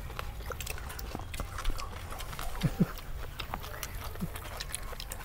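Close-miked mouth sounds of people eating grilled pork intestines and raw greens: wet chewing and lip-smacking clicks, with a couple of short low grunts of enjoyment about two and a half seconds in.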